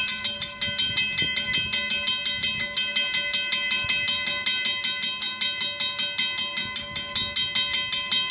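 Railroad grade-crossing warning bell ringing rapidly and steadily, several strikes a second, signalling an approaching train.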